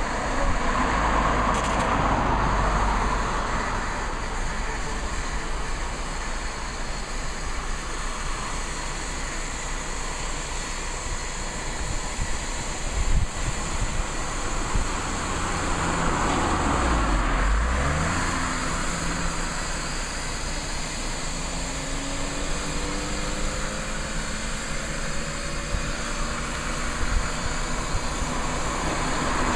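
Road traffic passing on an open road: vehicles go by in waves that swell and fade, with a low rumble throughout and an engine's rising tone in the second half.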